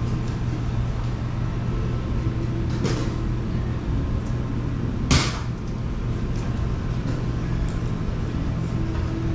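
Steady low hum of shop equipment inside a bakery, with two short knocks, a faint one about three seconds in and a louder one about five seconds in.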